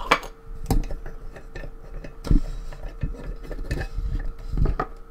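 Metal clinks and knocks of a lock and its key being handled, several separate sharp clicks spaced irregularly, the loudest a little over two seconds in.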